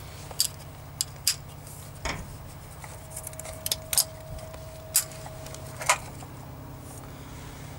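A scattering of sharp metallic clicks and clinks, about eight of them, from hands working on the distributor and ignition leads of a VAZ car engine, over a steady low hum.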